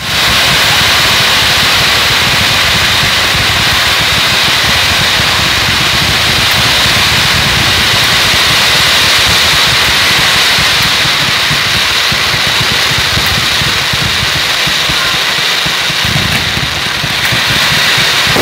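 Ground firework fountains (gerbs) spraying tall columns of sparks, a steady loud hissing rush with a rough rumble underneath; a few sharp crackles come in near the end.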